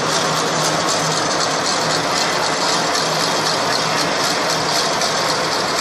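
Snack extruder production line running: a steady motor hum under a dense, rapid mechanical clatter, unchanging throughout.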